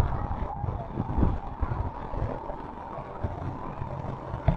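Wind rumbling unevenly on the microphone, with a single sharp knock near the end.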